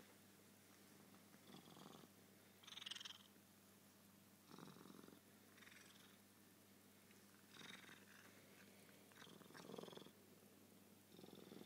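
Oriental cat purring, faint, the purr swelling and easing every second or two.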